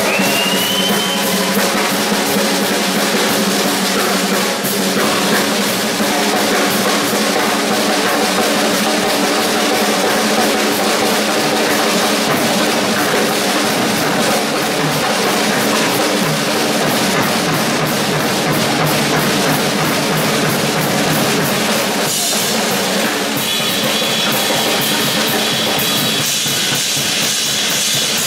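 Two drum kits played at once in a drum battle: fast, dense drumming on bass drum, drums and ringing cymbals, without a pause.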